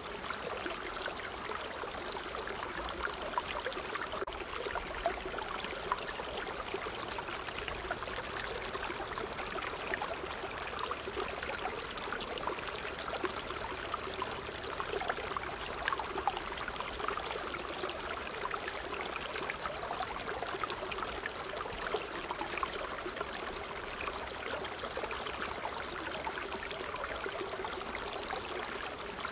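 Small creek running over rocks in a small cascade: a steady rush of water with scattered small splashes.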